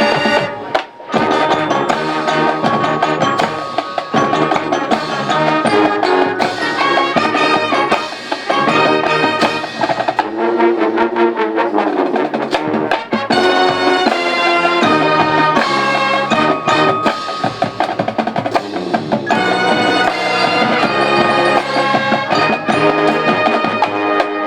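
Marching band playing: brass melody over drumline percussion, loud and continuous, with a brief break about a second in.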